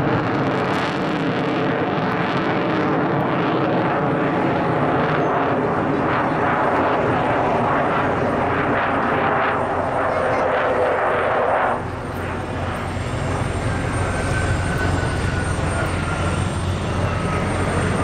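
Sukhoi Su-27 fighter's twin AL-31F afterburning turbofan engines, heard from the ground as the jet flies display manoeuvres overhead: a steady, loud jet roar. About two-thirds of the way through, the hissing upper part cuts off suddenly and a deep low rumble takes over, with a faint falling whistle above it.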